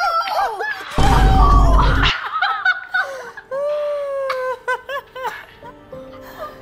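A woman and a boy shouting and laughing with excitement, with a deep low sound under them for about a second; then, a couple of seconds in, fainter television sounds: voices and laughter from a TV in another room.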